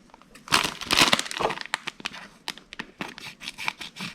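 Crinkling plastic packaging for about a second, followed by a scatter of small sharp clicks and taps as tiny plastic miniature pieces are handled.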